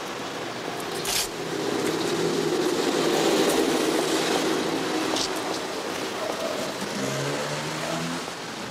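A car passing on the street, its engine sound swelling to a peak midway and then fading. A sharp click about a second in comes from the metal garden gate being opened.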